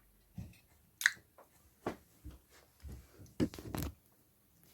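Scattered soft knocks, clicks and rustles of objects being handled close by, about a dozen in all and coming thicker near the end.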